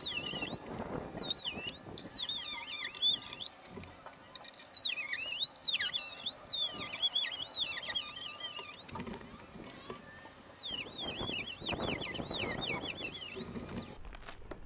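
Dremel rotary tool with a cutoff wheel running at a high whine. The pitch dips and wavers again and again as the wheel bites into the mower housing, with a squeal while cutting. It stops about a second before the end.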